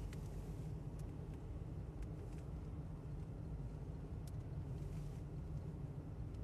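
A car driving on a snow-covered highway, heard from inside the cabin: a steady low rumble of engine and tyres, with a few faint ticks.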